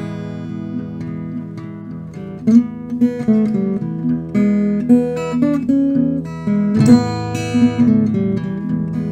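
Acoustic guitar playing a slow blues tune in picked single notes, with a louder chord about seven seconds in.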